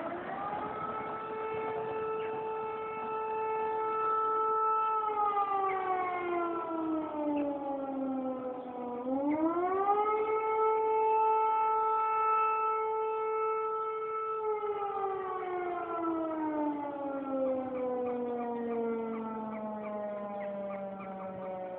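Civil defence warning siren sounding in a test. Its wail rises, holds one steady tone for about four seconds, then slides down. It climbs again about nine seconds in, holds for about four seconds, and slowly winds down toward the end.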